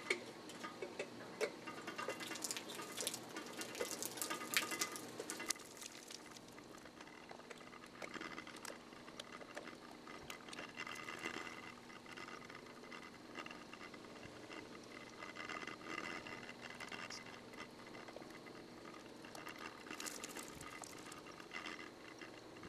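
Raccoon clambering on a metal shepherd's hook pole and handling hummingbird feeders: irregular scratching, clicking and rattling, busiest in the first few seconds and again near the end.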